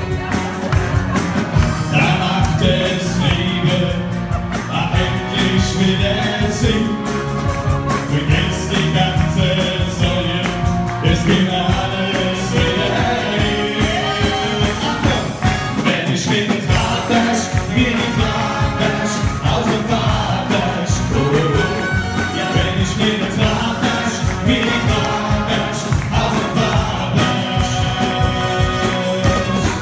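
Men singing a song into microphones over amplified backing music with a steady beat.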